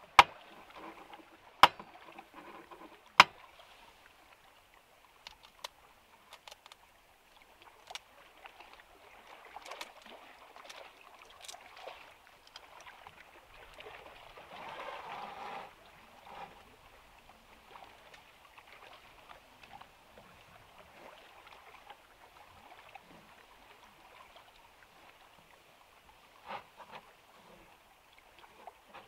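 An egg knocked against the rim of a bowl three times, sharp knocks about a second and a half apart, followed by soft clicks and rustling as eggshells are broken open over the bowl.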